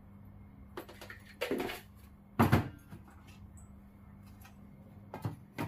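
About five knocks and clunks of kitchen containers being handled and set down on a countertop, the loudest about two and a half seconds in, over a faint low hum.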